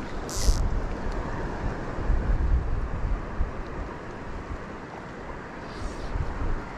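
Wind gusting on the microphone in low rumbles over small waves lapping in shallow water, with a short hiss about half a second in.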